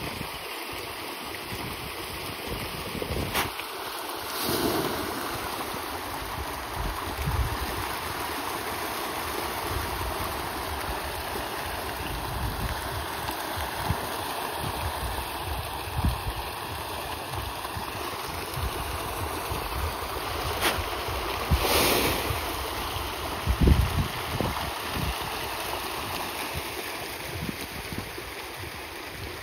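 Steady rushing noise of water and wind on the microphone, with a few brief louder swishes and knocks.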